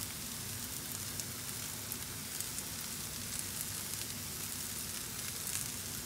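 Oil sizzling steadily in a frying pan of fried chicken wings and sautéed garlic, shallots and peppers, with faint scattered crackles.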